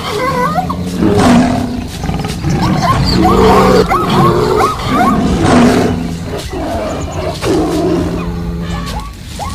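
A dense mix of wild animal sound effects: roars and other calls overlap, many sliding up and down in pitch, over low steady tones. The mix drops in loudness briefly near the end.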